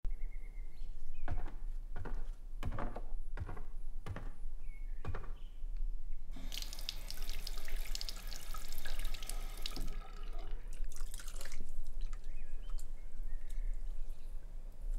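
Water at a sink: a few separate splashes, then a tap running into the basin for about four seconds, and a second short run of water soon after.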